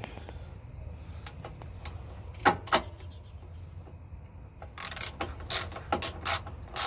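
Socket wrench working a radiator mounting bolt: sharp metal clicks, two loud ones about halfway in, then a quick irregular run of clicks and rattles near the end.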